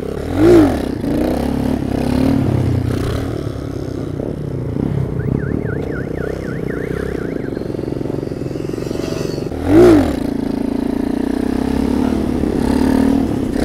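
Small 50cc monkey bike's single-cylinder engine running while riding. It is revved briefly twice, rising and falling in pitch, just after the start and again about ten seconds in; these are the loudest moments.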